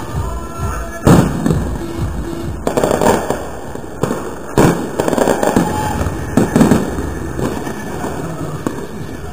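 Fireworks going off in the neighbourhood: several sharp bangs at irregular intervals, the loudest about a second in.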